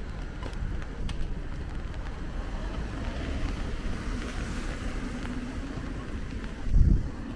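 City street ambience: a steady rumble of traffic passing on wet roads, with a brief low thump near the end.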